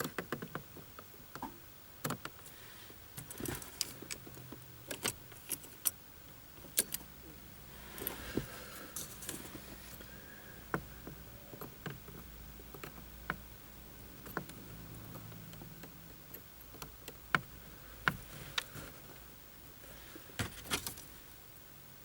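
Car keys and small metal parts being handled: scattered sharp clicks and light jangling at irregular intervals.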